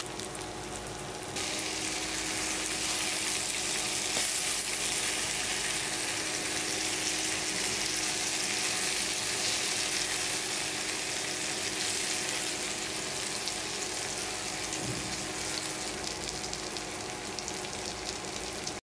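Food frying in hot oil in a pan, with a steady sizzle and crackle that cuts off abruptly near the end.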